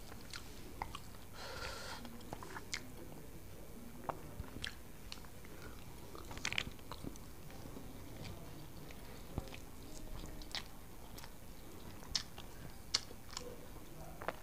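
Eating by hand from a banana leaf: fingers mixing and gathering rice against the leaf, with chewing and scattered small sharp clicks. A short hiss about a second and a half in.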